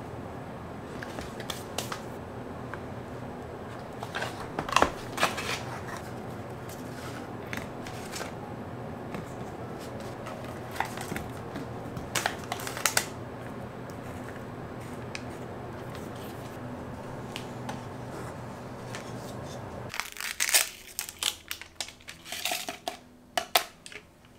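Kitchen handling sounds over a steady low hum: rustles and light knocks of bread rolls and packaging, with small foil-wrapped cheese cubes clattering out of a cardboard box onto a wooden plate about halfway through. Near the end the hum stops and a quick run of clicks and clatters from a clear plastic pitcher being handled follows.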